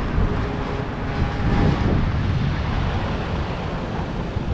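Street traffic noise in a busy city district, steady, with a brief swell about a second and a half in.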